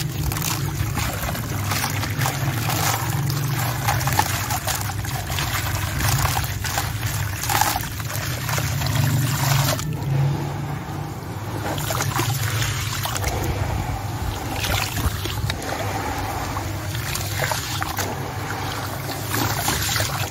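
Hands crumbling a sand-cement chunk into water in a plastic tub: continuous gritty crunching with many small cracks, mixed with wet sloshing and trickling as the soaked grit is mashed into a wet paste.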